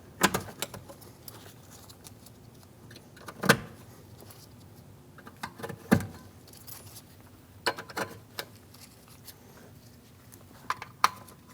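Plastic retaining clips being pressed into a car door's top edge: a series of separate sharp clicks and snaps a few seconds apart, the loudest about three and a half and six seconds in.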